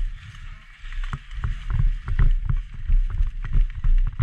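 Footsteps of someone running on a muddy dirt path, about two to three a second, with wind rumbling on the camera's microphone.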